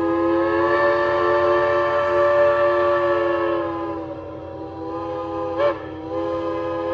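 A narrow-gauge steam locomotive's chime whistle blows a long, multi-note chord. About four seconds in it dips lower and softer, cuts out briefly near the end, then sounds again at full strength.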